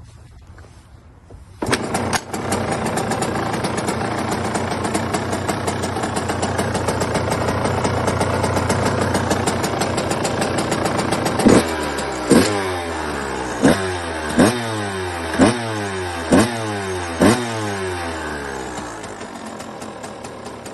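Two-stroke dirt bike engine starting about one and a half seconds in and running steadily. About halfway through it is revved in seven quick blips, each dropping back in pitch.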